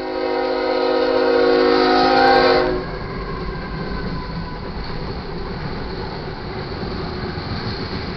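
Diesel locomotive air horn on a GE ES44AC blowing one loud, steady chord for about three seconds, cutting off sharply. Then the steady rumble and rail noise of the locomotives and loaded crude oil tank cars rolling past.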